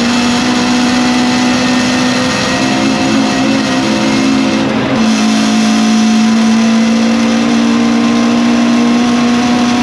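Lotus Cortina racing car's Lotus-Ford twin-cam four-cylinder engine at full throttle, heard from inside the stripped cabin. The engine holds a loud, steady high-revving note, with a brief break and a small drop in pitch about five seconds in.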